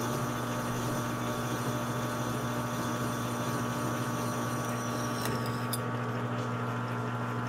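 Metal lathe motor running steadily while a cutoff tool parts off a length of seamless tube. About three-quarters of the way in, a faint high cutting tone sinks slightly and stops with a couple of clicks as the cut ends.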